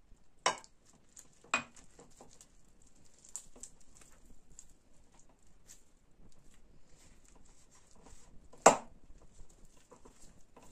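Hands mixing and squeezing flour and wet dough in a glass mixing bowl: soft crackly, scratchy rustling, with three sharp knocks against the glass, about half a second in, a second later, and the loudest near the end.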